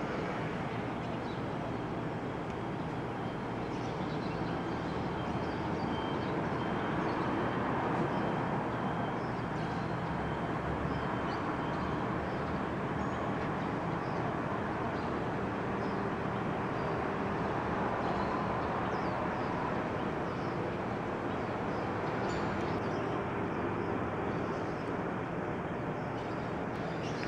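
Steady hum of distant city traffic heard from high above the streets, an even wash of noise without distinct events.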